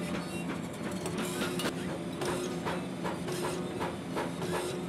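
Workshop clatter in a knife smithy: rapid, irregular clicking and knocking, several a second, over a steady low hum.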